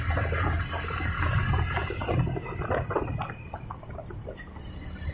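Wind rushing and buffeting over the microphone of a moving motorcycle, over the steady low drone of its engine; the rushing eases a little about two seconds in.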